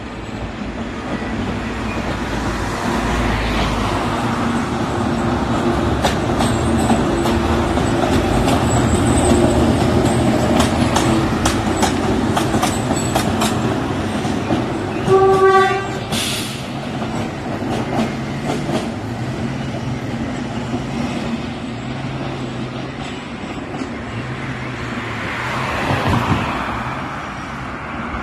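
Narrow-gauge diesel locomotive running past with its wagons: a steady engine drone with rail clicks, and one short horn blast about halfway. A car passes near the end.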